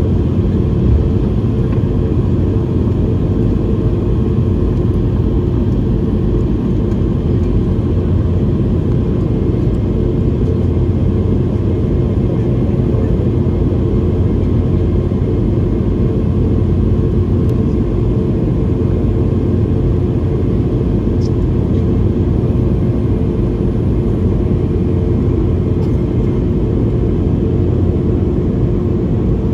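Steady cabin noise inside a Boeing 717-200 in flight: a low rumble of airflow and its rear-mounted Rolls-Royce BR715 turbofan engines, with a faint steady hum.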